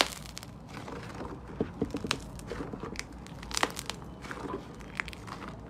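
Slime being squeezed and worked by hand, giving irregular sharp crackles and small pops.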